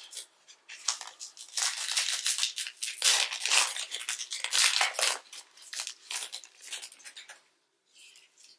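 A foil trading-card pack wrapper being torn open and crinkled: a dense run of quick tearing and rustling that stops near the end.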